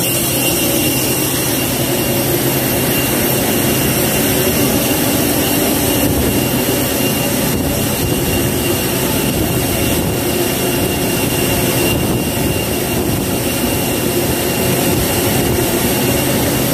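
Loud, steady machinery drone with a thin high whine on top: the combined running noise of a fuel truck and an Airbus A320 during refuelling.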